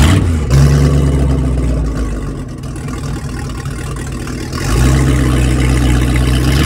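A large engine running at a steady low pitch. It eases off in the middle and picks up again about five seconds in.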